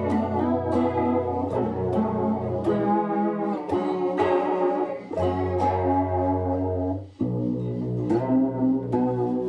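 Guitar played through a Boss CE-1 Chorus Ensemble pedal in vibrato mode on its high input setting: picked notes and chords over held low notes, with a brief break about seven seconds in. The unit has been repaired for bad distortion caused by its ageing MN3002 bucket-brigade chip lacking headroom.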